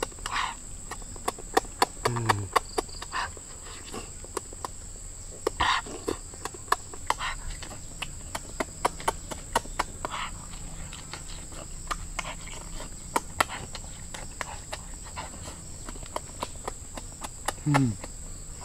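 A person eating boiled duck eggs close to the microphone: quick wet mouth smacks and clicks of chewing throughout, with two short falling 'mm' hums, one about two seconds in and one near the end.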